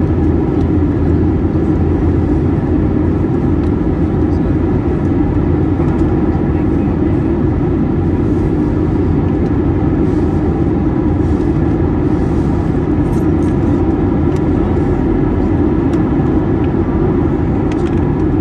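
Cabin noise of an Airbus A321-231 in flight, a steady, even rush of engine and airflow noise that is deepest in the low end, with a few faint steady whines above it. The aircraft is powered by IAE V2500 turbofans.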